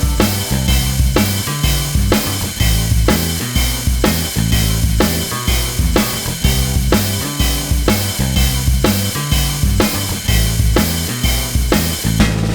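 Background music with drums, bass and guitar on a steady beat.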